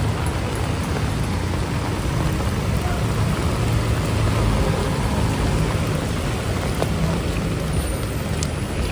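Heavy rain falling steadily, over a constant low rumble of wind and city traffic.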